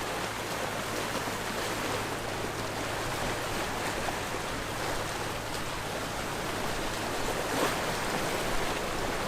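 Sea waves washing on the shore in a steady wash of surf, with a few brief splashes, the strongest about three-quarters of the way through.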